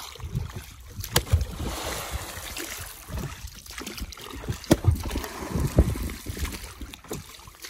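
Wooden rowboat being rowed: a wooden oar splashes through the water, and the boat knocks sharply a few times, over wind noise on the microphone.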